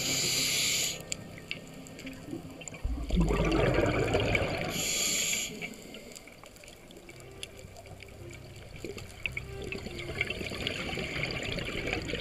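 Scuba diver breathing through a regulator underwater: a short hiss of inhalation at the start and again about five seconds in, with a low bubbling rumble of exhaled bubbles between them.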